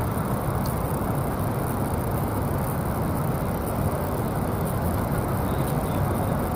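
Steady low city rumble of distant traffic and urban background noise, even and continuous with no distinct events.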